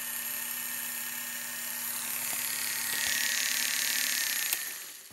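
Foredom SR flex-shaft machine's motor running at a low speed setting with a steady high whine, spinning the handpiece. It gets louder about three seconds in, then a click as the speed dial is turned down, and the motor winds down.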